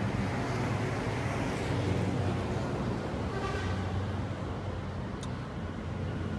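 Steady road traffic: a continuous rumble of passing car and motorbike engines.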